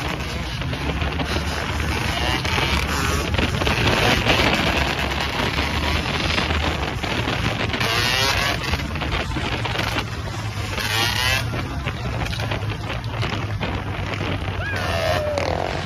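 Motorcycle engines, a blue Yamaha dirt bike among them, running at speed and revving in repeated rising and falling sweeps, with wind rushing over the microphone.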